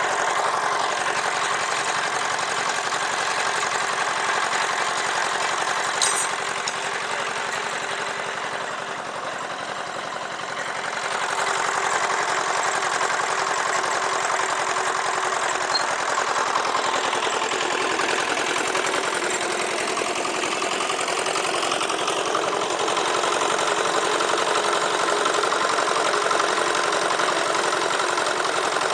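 The small single-cylinder diesel engine of a drum concrete mixer runs steadily while the mixer drum turns. Its sound eases for a few seconds after about eight seconds in, then picks up again. There is a single sharp click about six seconds in.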